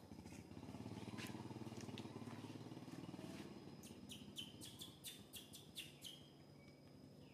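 Faint, quick run of short high-pitched bird chirps, about eight in two seconds, a little past the middle. A low steady hum underlies the first half.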